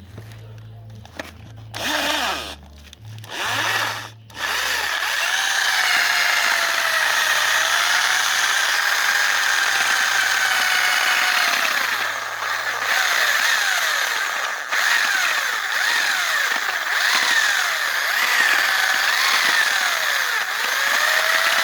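Homemade banana grinder driven by an old electric drill motor: two short bursts, then it runs continuously from about four seconds in, its whine dipping in pitch and recovering again and again.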